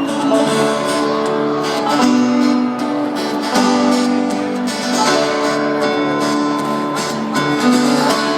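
Live band playing an instrumental passage: strummed acoustic guitars ringing out full chords that change every second or so.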